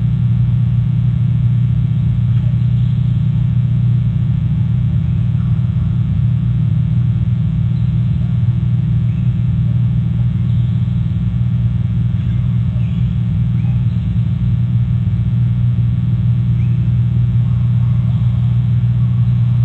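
Steady low electrical hum on the nest camera's microphone, even and unbroken, with a few faint brief higher sounds now and then.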